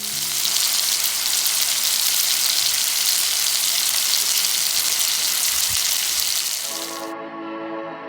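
Food sizzling in a hot pan: a steady, loud hiss that cuts off abruptly about seven seconds in, with music coming in near the end.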